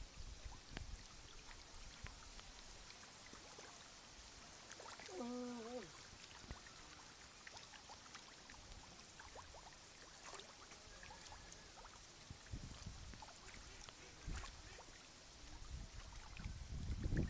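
Faint water lapping against a concrete edge, with scattered small clicks and splashes. About five seconds in, a short voiced sound lasting under a second, like a person's brief call.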